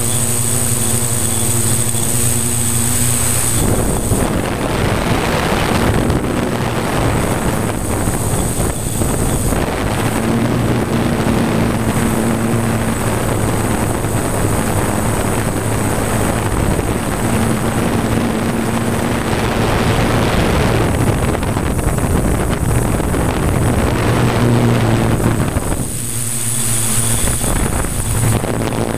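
Multirotor drone's electric motors and 15x5.5 propellers humming steadily in flight. From about four seconds in until near the end, wind buffets the onboard microphone with a dense rushing noise that mostly covers the motor hum.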